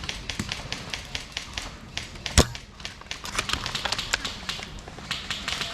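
Irregular rapid clicks and snaps of airsoft gunfire and BBs striking, several a second, with one loud sharp crack about two and a half seconds in.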